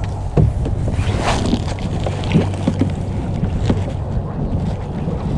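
Wind rumbling steadily on the microphone in a small plastic fishing kayak, with a handful of short knocks and taps as the line and a hooked catfish are handled at the kayak's side.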